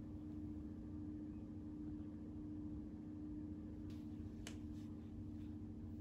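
Quiet room tone with a steady low electrical-sounding hum, and a few faint sharp clicks in the second half.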